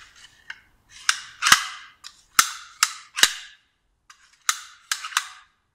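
Metal folding seat-backrest bracket being worked by hand: a run of sharp metallic clicks and clacks, about seven, in two groups, with brief scraping between them.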